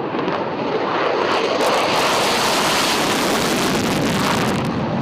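A loud, steady rushing noise that swells slightly in the middle.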